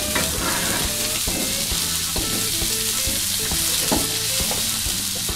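Chopped green beans sizzling in hot oil in a metal wok, just added to the fried spice paste, while a spatula stirs them with frequent short scrapes and knocks against the pan.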